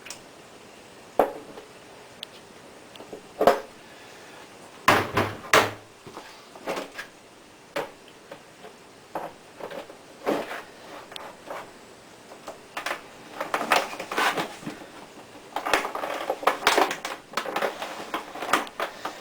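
Scattered knocks and clatters of kitchen utensils and containers being handled, busier in the last few seconds.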